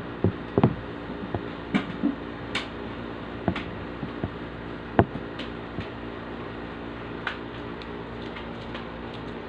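Steady low hum with about a dozen irregular light clicks and knocks, the sharpest about half a second in and at about five seconds.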